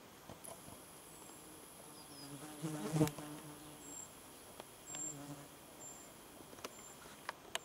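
A flying insect buzzing close by, swelling loudest about three seconds in and again briefly around five seconds. A faint, steady high whine and a few short high chirps sound above it.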